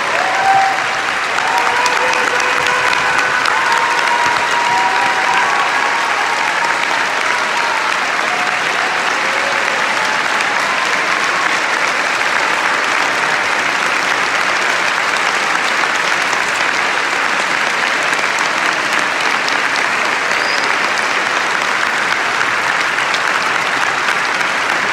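A large audience clapping steadily, with a few held cheers over the applause in the first several seconds.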